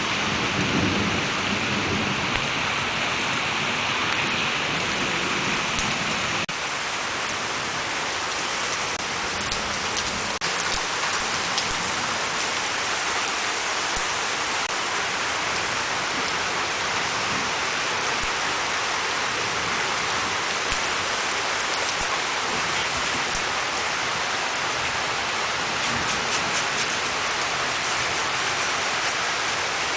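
Steady heavy rain falling in a thunderstorm, with a low rumble of thunder dying away in the first couple of seconds.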